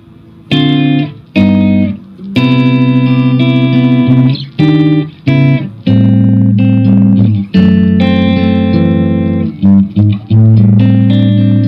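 Electric guitar played through the Lekato Tank G Black's Bogner Shiva overdrive preamp model on the middle and neck pickups: a clean tone with a little drive, chords strummed and let ring, restruck several times with brief gaps.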